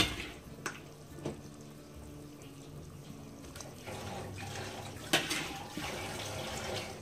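Broth boiling in an aluminium pressure-cooker pot, with a ladle knocking against the pot a few sharp times, three in the first second and a half and one more about five seconds in. The bubbling and stirring grow louder in the second half.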